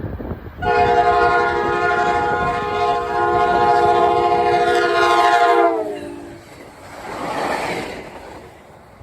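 Locomotive multi-chime air horn sounding one long blast of about five seconds, its chord dropping in pitch near the end as the locomotive goes by. A brief rushing swell follows about seven seconds in, then fades.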